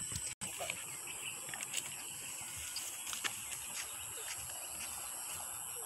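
Outdoor field ambience: a steady high hiss with scattered light clicks and knocks, cutting out for an instant about half a second in.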